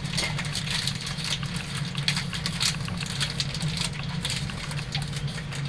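Paper crinkling and rustling in quick, irregular crackles as raw bacon is rolled up in a sheet of paper, over a steady low machine hum.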